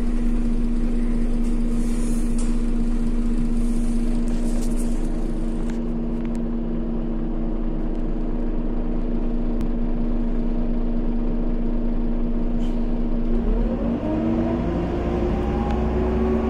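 A Scania OmniCity city bus engine idling with a steady hum and low rumble, heard from inside the passenger cabin. About thirteen seconds in, the engine note rises as the bus accelerates.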